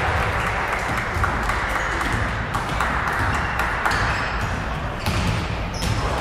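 Basketball game noise in a large gym: sneakers squeaking on the hardwood court and a basketball bouncing, over steady background chatter from spectators.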